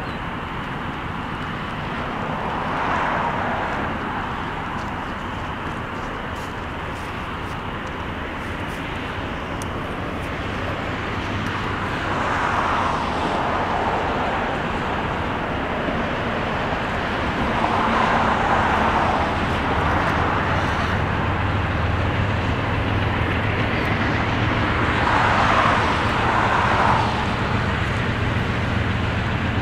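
GE B23-7 and EMD GP9 diesel locomotives approaching, their low engine rumble growing steadily louder. Four swells of a higher sound, each a second or two long, rise and fade at intervals over it.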